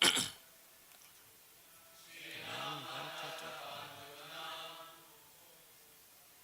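A line of a Sanskrit verse chanted in a slow, melodic recitation from about two seconds in to about five seconds, after a short loud sound at the very start.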